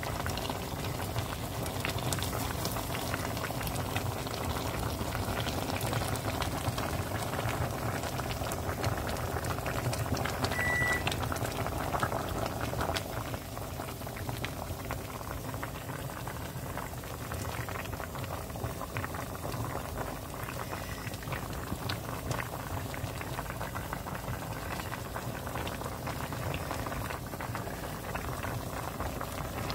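Pork-bone and potato stew (gamjatang) bubbling at a boil in its pot, a steady mass of small pops and crackles that eases a little about thirteen seconds in.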